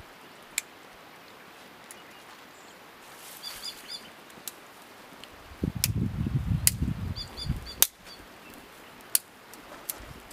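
A small kindling fire of dry grass and thin twigs being lit and fed, giving sharp separate snaps and crackles, with a spell of rustling handling from about six to eight seconds in. A small bird chirps twice in short bursts in the background.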